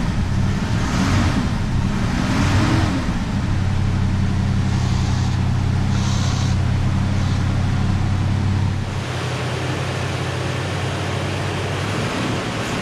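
A 1968 Chevrolet Impala's 307 small-block V8 idles steadily just after start-up on freshly fitted drive belts, with no belt chirp: the belts are snug. It gets a little quieter about nine seconds in.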